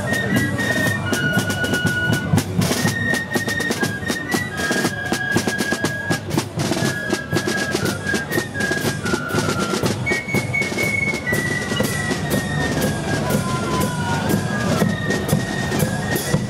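Fife and drum corps playing a march: a high fife melody in held notes over steady snare and bass drum strokes.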